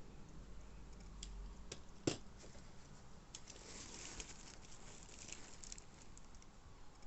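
Packaging being handled during an unboxing of diecast cars: scattered light clicks and taps, one sharp click about two seconds in, and crinkly rustling through the middle.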